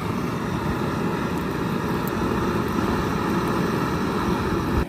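An engine running steadily with a dense, rapidly pulsing rumble, cutting off suddenly at the very end.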